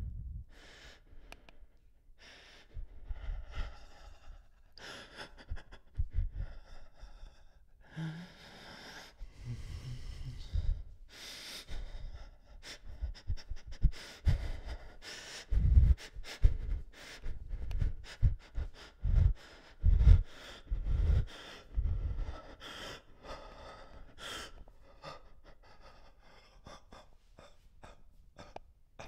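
A person gasping and breathing hard in irregular bursts, among sharp clicks and heavy low thumps that come thickest in the middle stretch.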